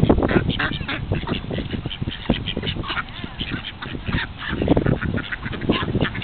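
A flock of mallard ducks quacking while they feed, many short calls overlapping one another.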